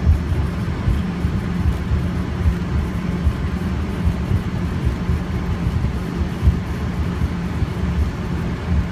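Steady low rumble of an airliner taxiing, heard from inside the cabin, with a faint steady hum over it.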